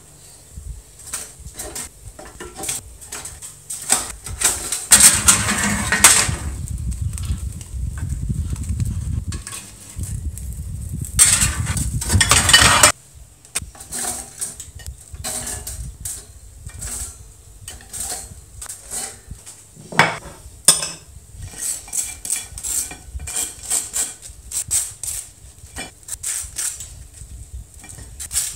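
Toast being handled and buttered: many short scrapes and taps of a table knife against toast and a ceramic plate. In the first half a rumbling noise runs for several seconds, then cuts off suddenly.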